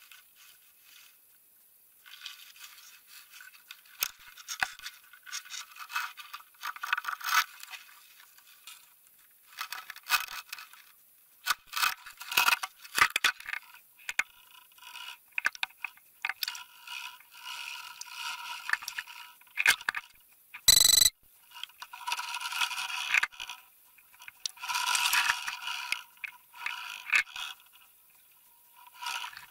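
Irregular scraping and rattling picked up underwater by a Spydro fishing camera as it is jostled and dragged about by a hooked sturgeon, coming in bursts, with one brief loud burst about two-thirds of the way through.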